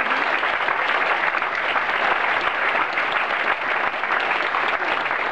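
Audience applauding steadily, a dense crackle of many hands clapping, as a speech ends.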